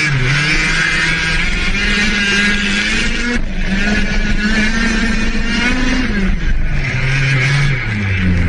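Radio-controlled model car's motor heard from a camera mounted on the car, running hard with its pitch climbing and dropping a few times as the throttle is worked.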